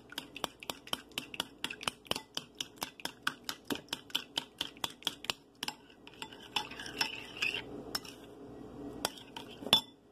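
A metal utensil beating egg mixture in a ceramic bowl, clicking against the bowl about six times a second. The beating breaks off after about five and a half seconds and goes on with sparser, uneven clicks.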